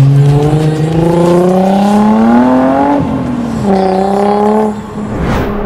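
Nissan 350Z's 3.5-litre V6 accelerating hard, its pitch rising for about three seconds, dropping at a gear change and then pulling again more steadily before easing off near the end.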